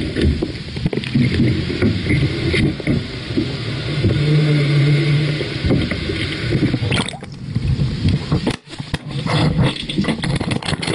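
Muffled underwater rumble and water noise picked up by a GoPro inside its waterproof housing as it is brought up from below. About eight and a half seconds in the sound breaks off briefly, then gives way to a run of knocks and scrapes as the camera is handled on the boat.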